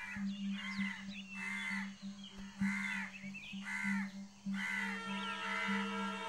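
A crow cawing over and over, about one harsh caw a second, above a low pulsing drone. About halfway through, a sustained chord of background score comes in under the caws.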